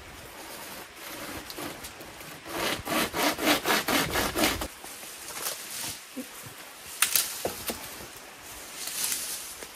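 Flexible pocket pull saw, looped around a tree branch and pulled by its two handles, cutting through green wood in a quick burst of about ten back-and-forth strokes. A sharp crack follows a couple of seconds later, then rustling of a leafy cut branch.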